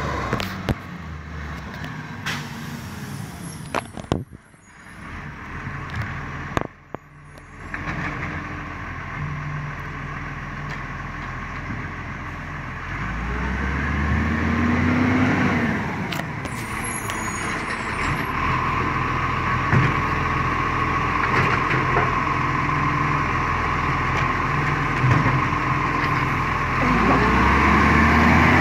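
Iveco side-loading garbage truck's diesel engine running as the truck drives up the street and closes in, revving up and easing off twice, the second time as it reaches the bins near the end. A steady high whine runs along with the engine over the second half.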